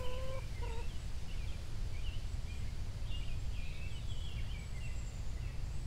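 Two short clucks from a backyard hen near the start, then small birds chirping in short scattered calls over a steady low rumble.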